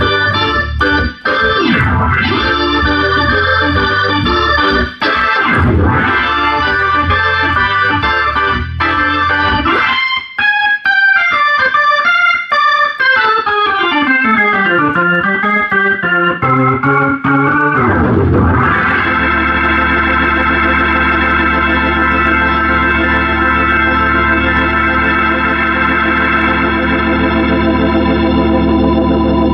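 Hammond B3 tonewheel organ being played: rhythmic chords over a bass line, then a descending run of notes about ten seconds in, then a full chord held steady through the last third.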